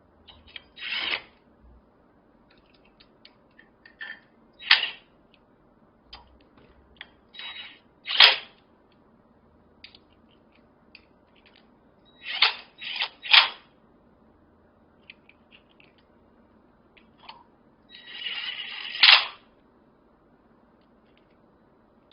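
Repeated short bursts from a power tool, six or seven in all, each under a second, the last and longest about a second and a half near the end, with light metallic clicks and taps between them.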